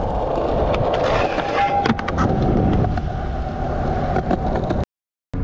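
Skateboard wheels rolling over concrete, a steady rumble with a few light clicks about two seconds in. The sound cuts out briefly near the end.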